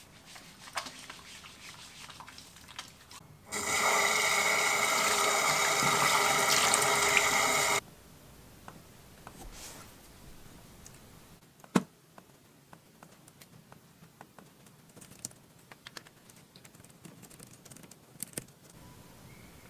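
Water running from a bathroom tap into the basin for about four seconds, starting and stopping abruptly. Then faint, scattered clicks of typing on a computer keyboard, with one sharper click.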